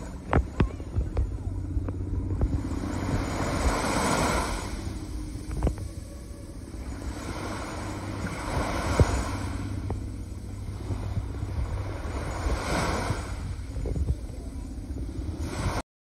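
Small waves washing onto a sand beach, swelling and falling back every four or five seconds, with wind rumbling on the microphone and a few sharp knocks.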